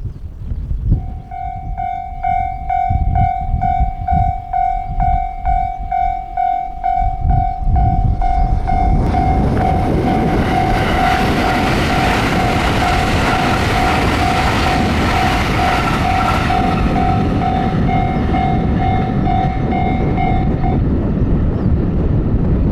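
Japanese level-crossing warning bell ringing, a fast repeating electronic ding about two to three times a second. From about eight seconds in a train passes over the crossing, its rush of noise swelling and staying loud. The bell stops about two seconds before the end.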